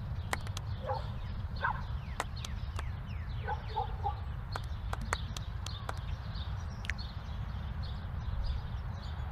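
Live camera sound with no music: a steady low rumble of handling or wind noise, scattered sharp clicks and knocks, and a few short faint chirps about one and a half seconds in and again around four seconds.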